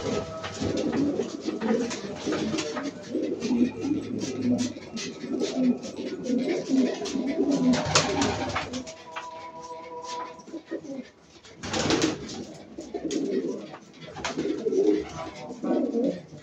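A flock of domestic pigeons cooing together in a loft, with short clicks and wing flaps as birds move about. Loud flutters of wings come about eight and about twelve seconds in as a pigeon takes off and flies across.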